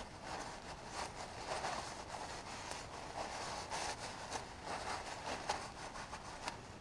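Paper towel rustling and rubbing in irregular strokes as gloved hands wipe an old brake caliper piston clean.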